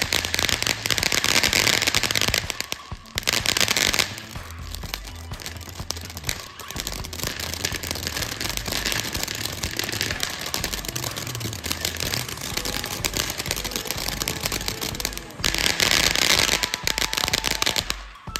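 Ground fountain fireworks crackling as they spray sparks, loudest in the first few seconds and again near the end, over background music with a steady bass line.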